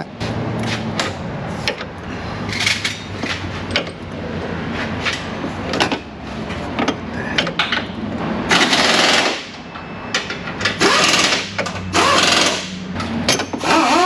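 Pneumatic shop tool running in repeated short, rattling bursts of about a second, with clicks and knocks between them, over a steady low hum.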